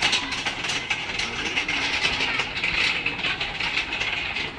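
A row of metal Tibetan prayer wheels rattling and clattering on their spindles as a hand spins them one after another, a dense, uneven run of clicks and knocks.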